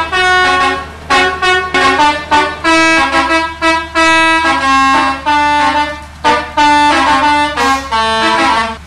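Bus telolet horn: a bank of multi-tone air horns on a bus, played as a quick melody of short and held notes, one after another, stopping just before the end.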